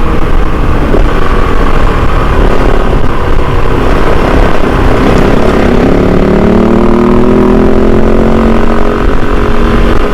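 Kove 450 Rally's single-cylinder engine running as the bike rides along, under heavy wind noise on the microphone. About halfway through, the engine note climbs and then holds steady.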